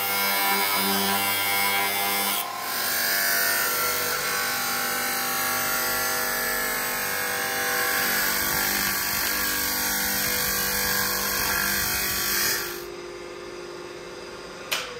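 Steel knife blade being ground against a spinning abrasive disc on an electric-motor grinder, a loud, continuous grinding with the motor's steady hum under it. Its character shifts about two and a half seconds in. The grinding stops near the end, leaving the motor humming on its own, followed by a single sharp click.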